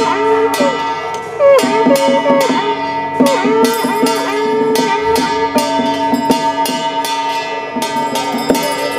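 Taoist ritual music: a melody of sliding, bending notes over several held steady tones, punctuated by sharp percussion strikes roughly every half second to a second.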